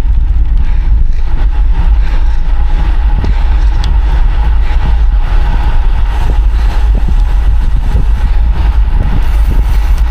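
Steady wind rushing and buffeting over the microphone of a camera riding along on a road bicycle at speed: a loud, even rumble.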